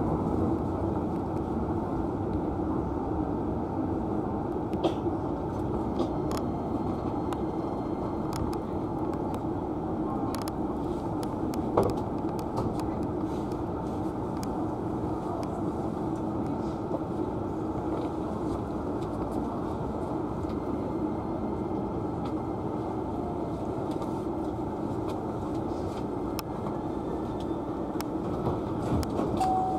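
Hankyu electric train heard from inside the car: a steady rumble with a few sharp clicks.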